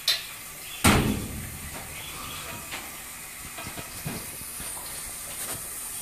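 A top-loading washing machine's lid shuts with a click and then a loud thump about a second in. Under it runs the steady high hiss of water flowing through a running SpectraPure RODI (reverse osmosis/deionisation) filter unit.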